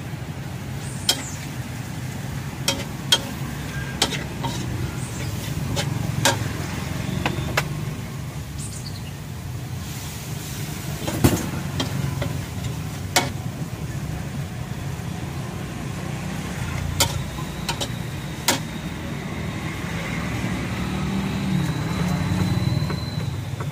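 Metal spatula striking and scraping a steel wok during stir-frying, about a dozen sharp, irregular clinks, over a steady low rumble.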